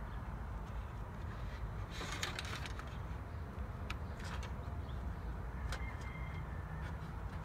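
A few short clicks and rattles of fog-light wiring and an inline fuse holder being handled at a car battery terminal, about 2, 4 and 6 seconds in, over a steady low rumble.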